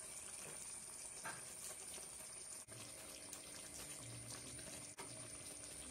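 Faint steady hiss of chicken curry simmering in a pot, cutting out briefly twice.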